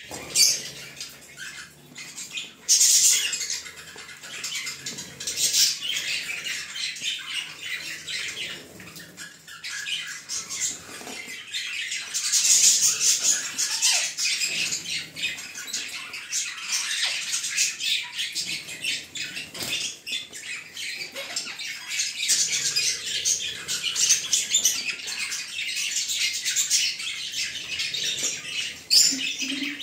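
A flock of budgerigars chattering and squawking: a dense, continuous run of high chirps, with louder bursts about three seconds in and again around twelve seconds in.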